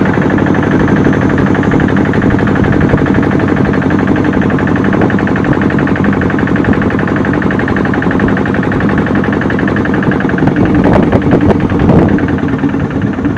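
Long-tail boat's engine running steadily under way, a loud, fast, even beat.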